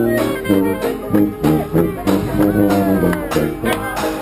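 A small brass band playing live: a tuba carries the low notes while a bass drum with a mounted cymbal keeps a steady beat.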